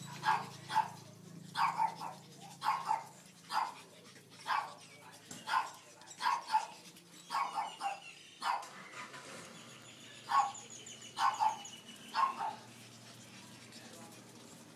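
Pug puppies yapping during rough play: about twenty short, high-pitched barks in quick uneven runs, with a pause about two-thirds through, then stopping shortly before the end.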